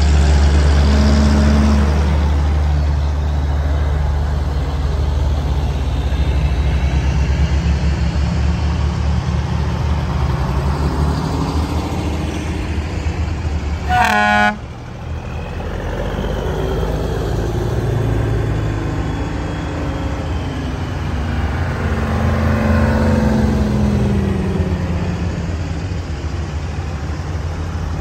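Antique Brockway heavy trucks driving past one after another, their engines running low and heavy, with the engine pitch rising and falling as they pass. About halfway through, a horn gives one short toot.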